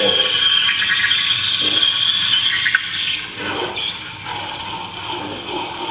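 Espresso machine steam wand frothing milk in a jug, its tip just under the surface: a steady high-pitched hiss and squeal. About three seconds in it turns quieter and lower.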